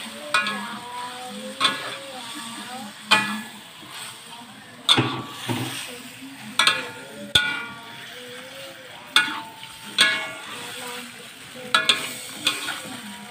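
Metal spatula knocking and scraping against a wok while squid in a thin soy-sauce gravy is stirred: a ringing clank about once a second over a low sizzle from the simmering sauce.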